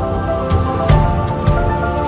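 Background music: sustained chord tones with sharp percussive hits at a quick beat.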